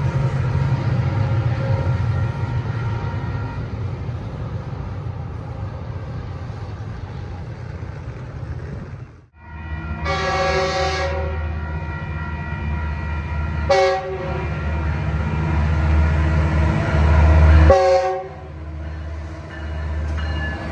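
Metrolink bilevel passenger coaches rolling past with a steady rumble. After a brief break, an approaching Metrolink diesel locomotive sounds its horn: one long blast of about a second, then two short toots a few seconds apart. Its engine drone and wheel noise grow louder as it pulls in, loudest around the last horn toot.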